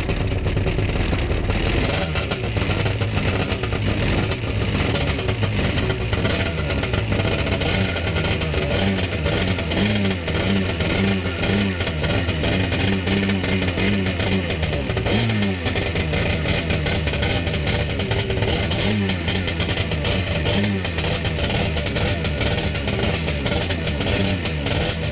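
Stand-up jet ski's engine running out of the water, with several short rises in pitch in the middle, while vegetables are pushed into the jet pump intake and shredded by the impeller.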